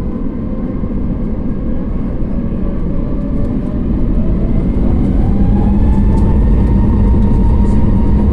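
Airbus A321neo LR's jet engines spooling up for the takeoff run, heard from inside the cabin: a heavy rumble with a whine that rises slowly in pitch, growing louder over the first few seconds and then holding.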